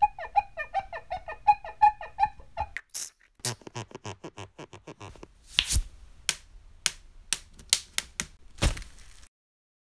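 Cartoon sound effects: a quick run of squeaky pulses for about three seconds, then after a short gap an uneven series of sharp clicks and cracks, two of them louder, stopping shortly before the end.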